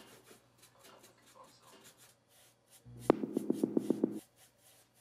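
Faint strokes of a small paintbrush rubbing paint onto a miniature wooden bookcase. About three seconds in comes a short sound effect, louder than the brushing: a sharp click, then a pulsing hum at about seven pulses a second, lasting just over a second.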